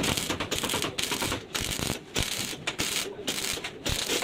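A power tool working on car body panels, a rapid rattling noise that breaks off briefly several times.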